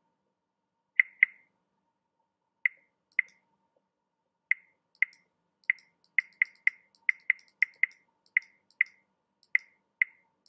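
Short, light software interface click sounds, about twenty of them. They come first in pairs, then in a quicker run in the middle as on-screen controls are clicked repeatedly.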